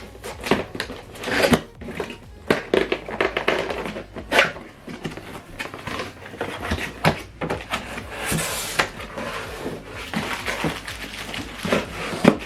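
Box and packaging being handled: a run of knocks, taps and rustling as a box is opened and its contents taken out, with a longer rustle about two thirds of the way in.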